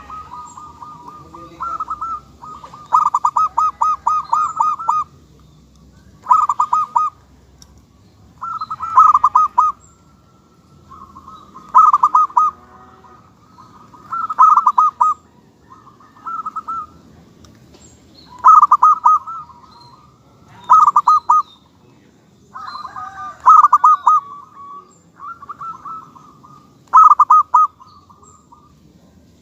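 Local perkutut (zebra dove) singing: short phrases of rapid, staccato cooing notes, repeated about every two to three seconds.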